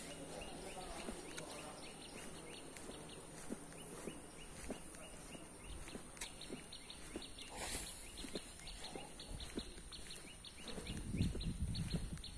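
Outdoor ambience of a walk along a tree-lined road: rapid repeated animal chirping, about four a second, over a steady high drone, with soft footsteps on asphalt. Low wind rumble hits the microphone near the end.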